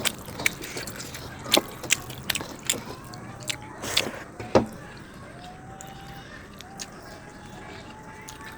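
Close-miked eating sounds: a person biting and chewing a rice-and-curry meal, with a run of sharp crunchy clicks over the first five seconds, then quieter chewing.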